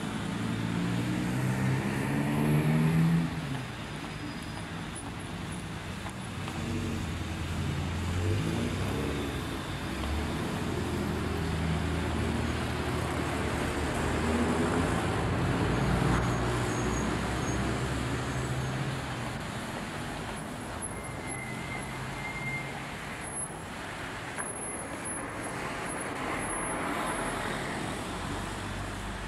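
Motor vehicle engine running with road noise, its pitch rising and falling as it changes speed, loudest in the first three seconds.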